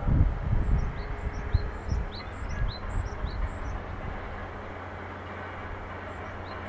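Outdoor ambience of small birds giving a run of short, quick chirps over a steady low hum, with low rumbling thumps in the first two seconds.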